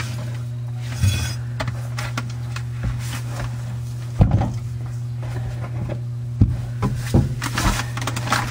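A few scattered knocks and clunks of metal things being handled under a kitchen sink, the loudest about four seconds in, over a steady low hum.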